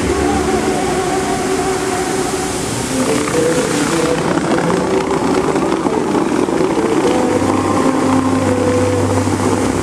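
Bellagio fountain's water jets rushing and splashing as a steady hiss that gets brighter about three seconds in, with the show's music playing long held notes underneath.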